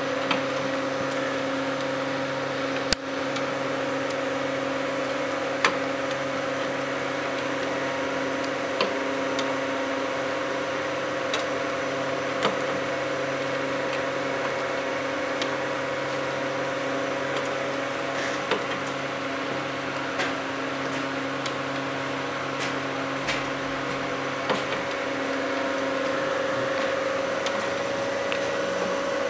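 Motor-driven cam mechanism of an automaton puppet running, giving a steady low hum with a fixed drone. Sharp clicks come every few seconds.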